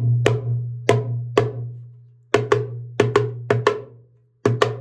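Darbuka played by hand: sharp, crisp strokes in small groups with short pauses, over a deep ringing bass tone from the drum body that fades after the last strokes. The playing demonstrates the slap stroke.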